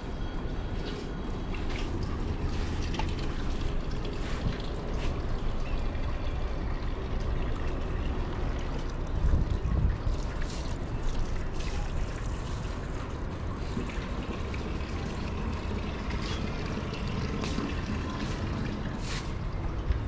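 Water running from a tap into a sink as hands are washed, over a steady low rumble that swells briefly around nine seconds in, with a few light clicks.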